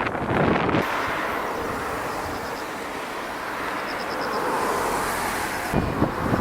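Steady rushing noise of the swollen, typhoon-flooded Kinokawa river, with wind buffeting the microphone in the first second and again near the end.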